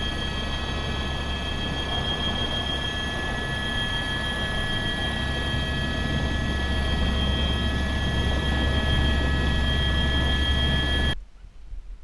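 Helicopter cabin noise in flight: a steady turbine whine of several high tones over a low rotor drone, growing a little louder, then cutting off suddenly near the end.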